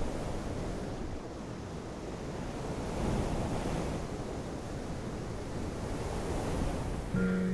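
Steady rushing noise like wind and surf, swelling slightly about three seconds in. Just before the end, soft piano notes begin.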